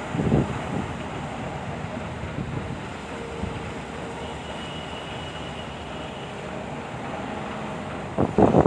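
Excavator engine running steadily under wind noise on the microphone, with a louder burst of noise near the end.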